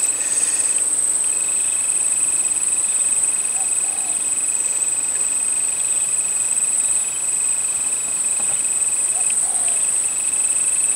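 Steady, high-pitched drone of insects (crickets or cicadas) calling without pause, with a second, lower thin insect tone that drops out briefly about a second in and again near the end. A couple of faint short calls come through around four and eight seconds in.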